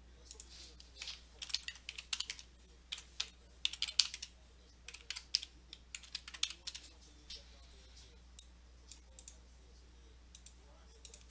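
Typing on a computer keyboard: quick runs of keystrokes for the first seven seconds or so, then a few scattered single key or mouse clicks.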